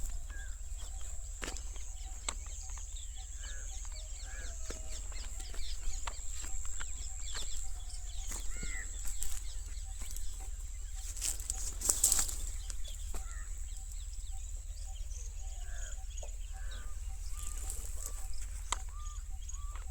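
Chickens clucking in short, scattered calls, over a steady high whine and occasional clicks.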